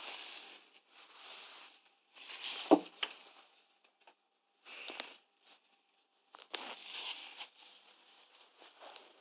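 Close-up rustling and scuffling in short bursts with quiet gaps between them, and a sharper knock about three seconds in: a hand and play-fighting cats tussling against the phone.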